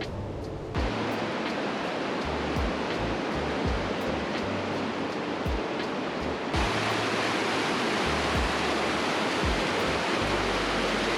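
Background music with a regular beat and a bass line, under a loud steady rushing noise like running water or wind. The rushing noise jumps louder abruptly about a second in and again just past halfway.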